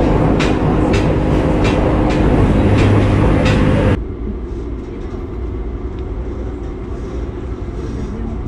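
Hybrid railcar running, heard from inside the carriage: steady rumble and hum with several sharp clicks from the wheels and track. About halfway through, the sound drops abruptly to a quieter, steadier running noise.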